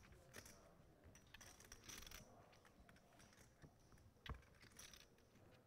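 Near silence with faint scattered clicks of poker chips at the table, one sharper click about four seconds in.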